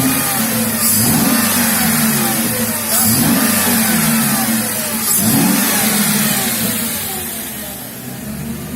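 Mercedes-Benz M113 5-litre V8 running just after a full rebuild, its throttle blipped about three times, each rev rising and falling back, then settling towards idle.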